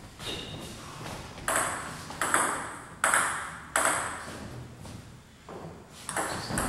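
Table tennis ball being struck back and forth in a rally, sharp clicks off the bats and the table about every 0.7 seconds, each ringing on in the hall. The hits die down briefly about two-thirds through, then pick up again near the end.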